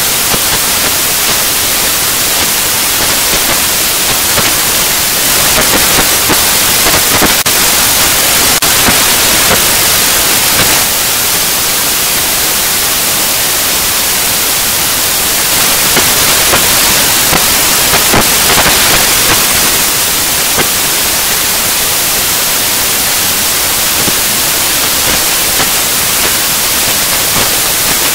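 Loud, steady static-like hiss, strongest in the highs, swelling slightly twice, with a few faint clicks.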